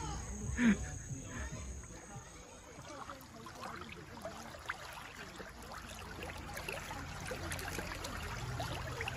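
Shallow stream water flowing and rippling over stones, a faint steady babble. A voice is heard briefly in the first second.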